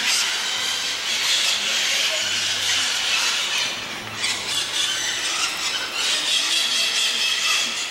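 A dense, unbroken chorus of harsh, high screeching calls from many birds together.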